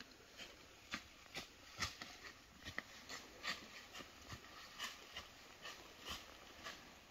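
A run of faint, short clicks and rustles at irregular spacing, about two a second.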